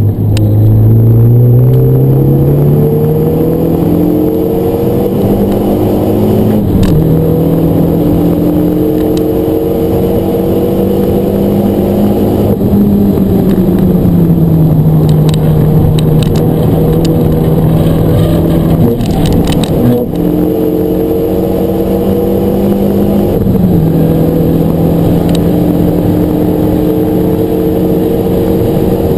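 A Renault Mégane RS 250's turbocharged 2.0-litre four-cylinder engine under hard acceleration on track, heard from inside the cabin. Its note climbs steadily and drops sharply at the gear changes, about seven seconds in and again near the end, and falls away more gradually midway when the throttle is lifted.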